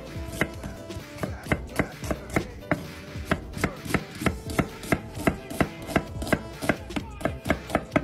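Chef's knife slicing through a yellow onion and knocking on a wooden cutting board, a steady run of chops about three a second.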